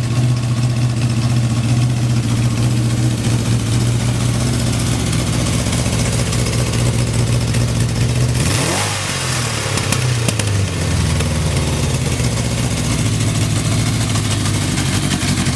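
Kawasaki Z650 air-cooled inline-four engine running at a steady idle, with one quick rev a little past halfway before it settles back to idle; the seller describes it as running without abnormal noise.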